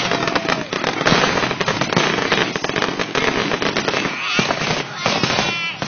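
Fireworks display: a dense, rapid barrage of overlapping bangs and crackles with almost no gaps between them.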